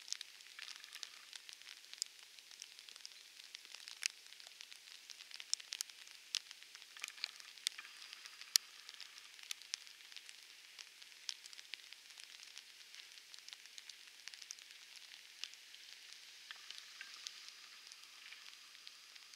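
Rain falling: a steady hiss with many sharp ticks of drops striking close by.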